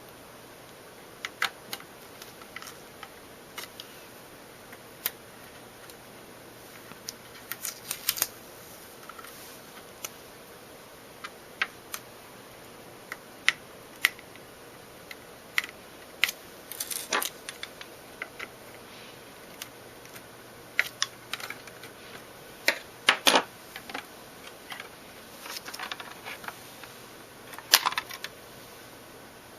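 Irregular clicks and taps of a Buffalo LinkStation LS-XHL NAS enclosure being handled and pried apart, its plastic latch tabs and parts knocking and snapping, with a few louder clacks about three-quarters of the way through and near the end.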